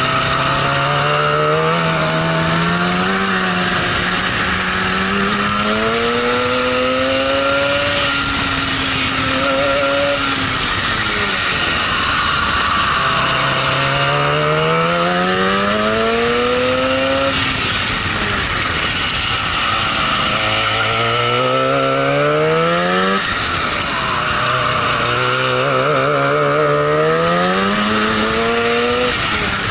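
Racing kart's two-stroke engine at full throttle, heard close from on board. Its pitch climbs four times as it accelerates out of corners and falls away in between under braking, over a steady rush of wind.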